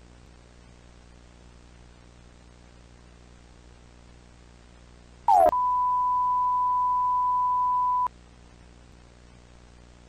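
Electronic broadcast warning tones over a faint steady hum and hiss: about five seconds in, a short loud burst of falling sweeps, then a steady high beep held for about two and a half seconds that cuts off sharply.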